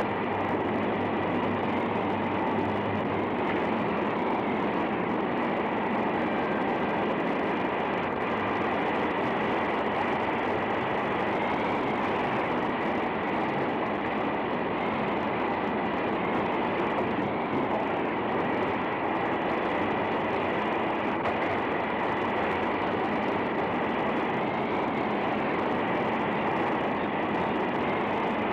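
Steam hissing steadily from boiler pipes and fittings, a constant rush that does not let up.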